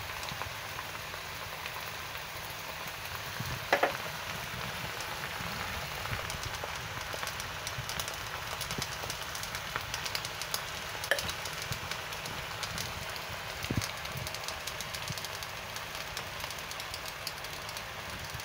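Napa cabbage sizzling in a hot wok, a steady crackling fry, with a few sharp clicks along the way.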